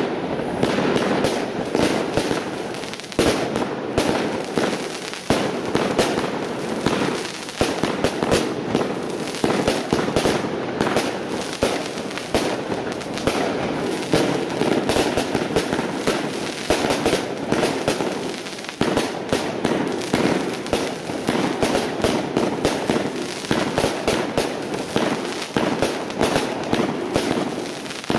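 Reign of Fire 70-shot big-bore firework barrage cake firing a continuous, rapid series of shots. Each mortar launches and bursts into a willow break, with no pause between shots.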